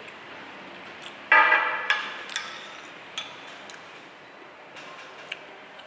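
Dishes and utensils clinking: one loud ringing clank about a second in that fades over half a second, then a few lighter sharp clicks.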